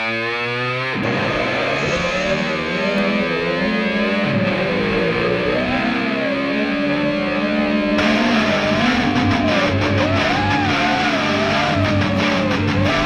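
Rock music with distorted electric guitar. It gets fuller and brighter about eight seconds in.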